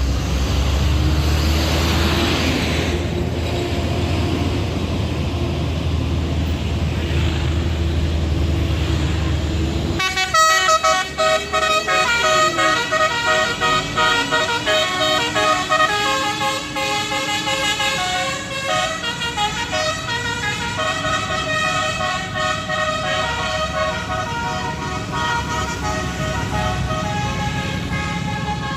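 Tour bus engine rumbling steadily, then from about ten seconds in a multi-tone 'telolet' bus horn playing a quick tune of stepped notes that runs on to the end.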